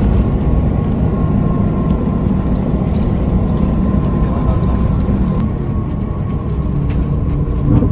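Bus engine and road noise heard from inside the cabin: a steady low rumble with a faint, steady whine above it.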